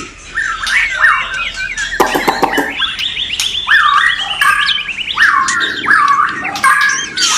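White-rumped shamas (murai batu) singing together: repeated whistled swooping notes, with a fast run of rising notes in the middle and a short burst of harsh clicking notes about two seconds in.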